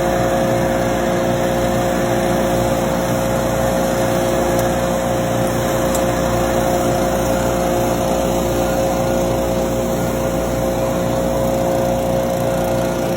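A small engine or motor running steadily at one constant speed.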